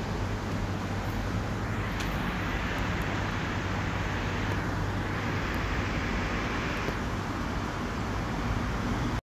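Steady low hum and hiss of background room noise, with faint clicks about two seconds and seven seconds in.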